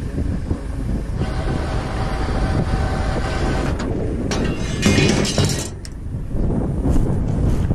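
Tow truck's engine and road rumble heard from inside the cab while driving. A steady pitched tone rings for a couple of seconds about a second in, and a louder, brighter rush of noise comes around five seconds in.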